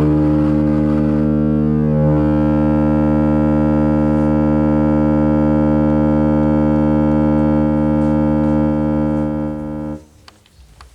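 Loud electronic noise-music drone: a dense chord of many steady held tones that cuts off abruptly near the end.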